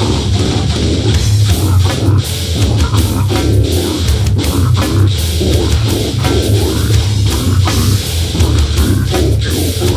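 Loud heavy metal music, guitars and drum kit playing a fast, dense, continuous passage.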